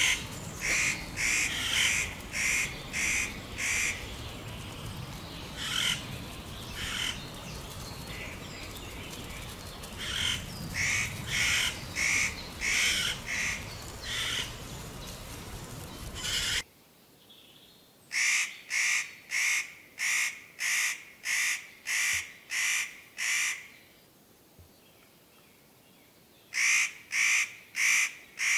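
Spotted nutcracker calling: runs of harsh, rasping screeches, about two a second, in several bouts with pauses between. A low background rumble under the first half stops abruptly about halfway through.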